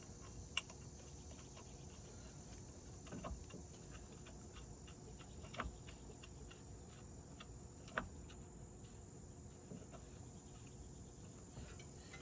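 Faint, scattered clicks and knocks of hand tools and parts during a CV axle job, about five of them a couple of seconds apart, the sharpest about eight seconds in. A steady high-pitched hum runs underneath.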